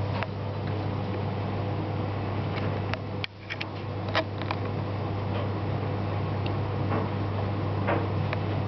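Steady low hum and rushing background noise, with scattered soft clicks and rustles as a kitten rolls and paws on a fleece blanket close to the microphone.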